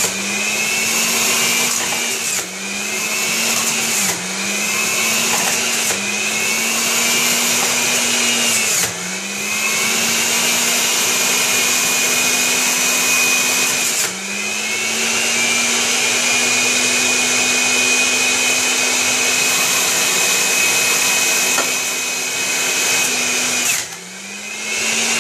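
Philips HR1832/00 400 W centrifugal juicer motor running with a high whine as it grinds apple pieces. The pitch sags briefly about six times, each time a piece is pushed into the chute and loads the motor, then climbs back up.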